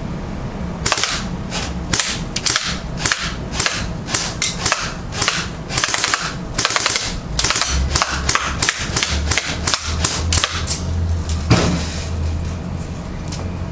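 Airsoft AK-47 replica firing: dozens of sharp shots in quick succession, some in short rapid runs with brief pauses between, stopping near the end.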